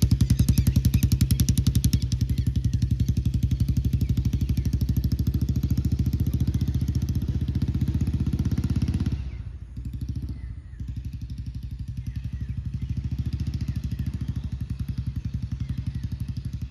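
Single motorcycle engine running with a steady, fast, even beat. It becomes noticeably quieter about nine seconds in and keeps running.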